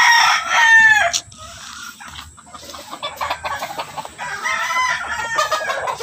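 Gamefowl roosters crowing, with clucking. One crow trails off with a falling tail about a second in, and another crow runs from about four and a half seconds in to near the end.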